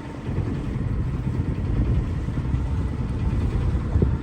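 Sabre 27 yacht's inboard engine running steadily at idle in neutral, a low rumble.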